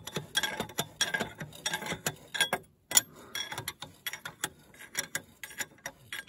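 Irregular metallic clicking and ticking from a homemade puller as it draws the cylinder liner out of a DT-20 tractor engine block, with a brief break a little before halfway.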